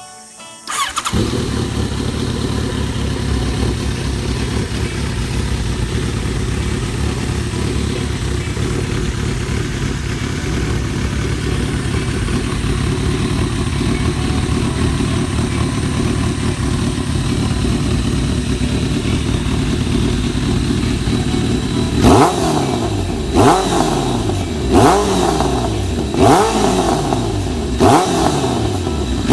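Kawasaki ZRX1100 inline-four motorcycle engine breathing through an aftermarket conical GP silencer. It comes in abruptly about a second in and idles steadily. Near the end it is revved in a series of short throttle blips, about one every second and a half, each rising and falling in pitch.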